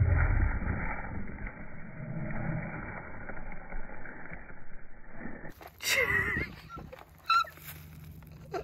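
Dull rumbling noise, loudest at the start, then from about six seconds in a man's short wordless vocal sounds, three brief outbursts.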